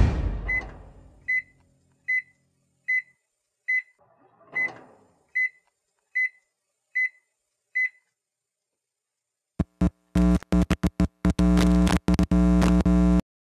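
Music fades out, then a microwave oven beeps about ten times, one short high beep every 0.8 s or so, with a soft whoosh midway. Near the end a loud electric buzzing hum starts and stops in stuttering bursts for about three and a half seconds.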